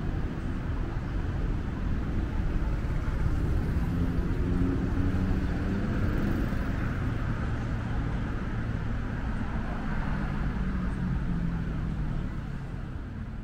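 Road traffic: a steady low rumble with engines of passing vehicles, motorbikes among them, swelling and fading, and the whole sound dying away near the end.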